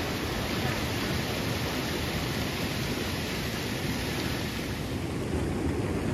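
Steady rushing noise with no distinct events; its tone shifts slightly about five seconds in.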